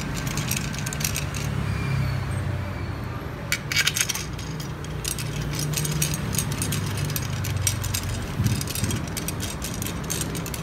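Metal screws and bolts clicking and clinking in several short clusters as they are handled and fitted into a folding bed's steel frame to mount a caster wheel, over a steady low hum.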